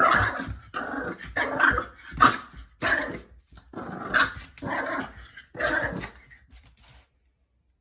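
Small white dog growling and barking in a string of short, snappy bursts, stopping abruptly about seven seconds in.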